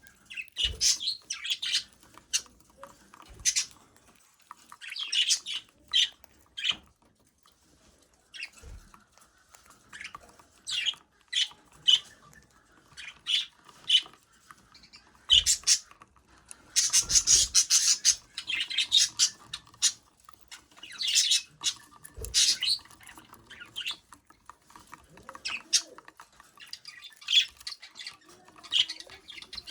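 Budgerigar chirping and chattering in short, high bursts, busiest for a couple of seconds past the middle, with a few soft knocks among them.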